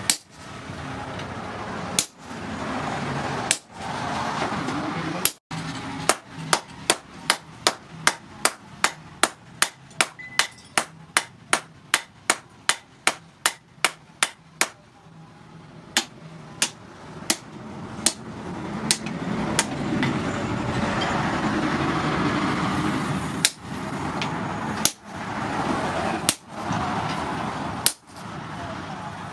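Hand hammer striking red-hot rebar on a steel post anvil, forging a blacksmith's tong piece. Single blows come a second or two apart at first, then a fast even run of about three blows a second, then spaced single blows again over a steady background noise.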